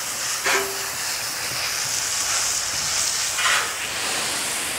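Pistol-grip garden hose nozzle spraying a steady jet of water onto a boat trailer's wheel and hull: a continuous hiss of spray, with louder spatters twice as the jet hits the wheel.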